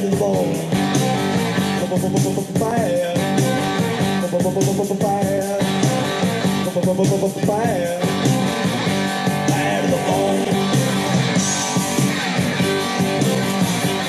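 A rock song with guitar and singing, played loud through a homemade ammo-box Bluetooth speaker with 6.5-inch Polk marine speakers driven by a 300-watt amplifier.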